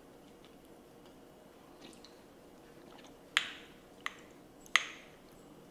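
Wooden spoon knocking against a ceramic soup bowl while scooping soup: three sharp knocks in the second half, the first and last the loudest, after a few faint clicks.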